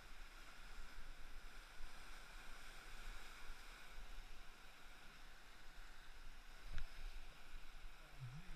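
Steady rush of river rapids around an oar raft running whitewater, with one sharp knock about two-thirds of the way through.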